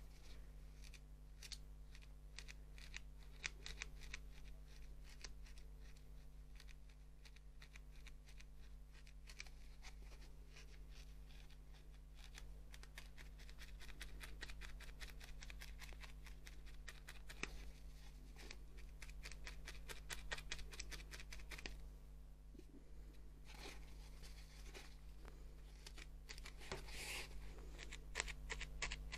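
Felting needle jabbing again and again into wool roving on a felting pad: a fast run of soft scratchy stabs, several a second, with a short pause about three-quarters of the way through.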